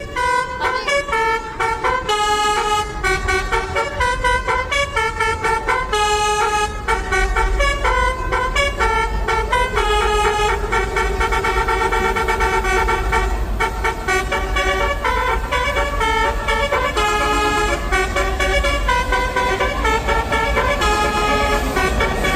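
Metro train horn playing a fast tune of changing horn notes, over a steady low rumble.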